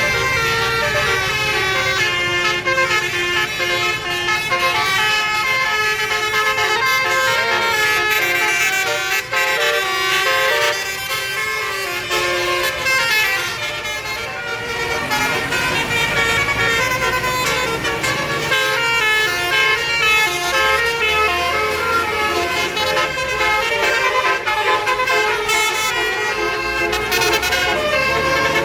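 Bus 'basuri' telolet musical horn playing a melody, its several horn tones stepping up and down in pitch without a break. A low engine rumble runs underneath, stronger in the second half.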